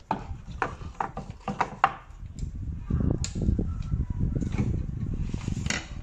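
Plastic control-board housings being handled and shifted on a wooden workbench: a quick run of light clicks and knocks in the first two seconds, then more knocks and rubbing.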